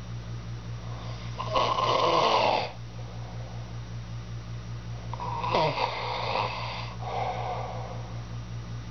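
A sleeping man snoring: a loud snore about a second and a half in, then another past the middle followed by a softer one, over a steady low hum.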